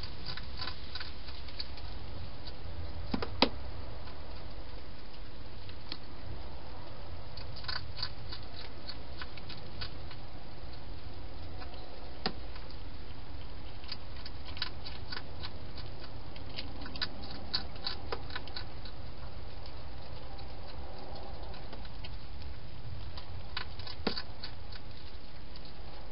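Wild hedgehog eating at a bowl: bouts of quick, crunchy chewing clicks, with a few sharper single knocks among them.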